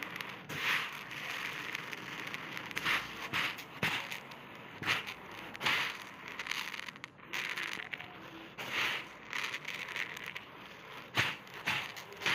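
Uncooked rice grains pouring from a hand onto a heap of rice: a dry rustling hiss that swells and fades over and over as handfuls trickle down, with a few sharp ticks of grains landing.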